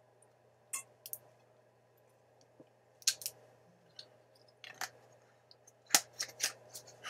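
Thin plastic water bottle being handled: scattered crackles of the plastic and clicks of the screw cap, a few at a time, with the loudest cluster about six seconds in.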